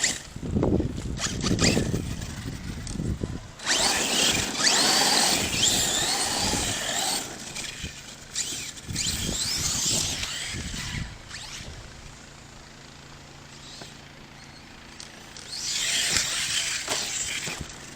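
ARRMA Kraton 6S RC truck's brushless electric motor whining up and down in pitch in several bursts as it accelerates, with its tires scrabbling on dirt. Low rumbles come in the first few seconds.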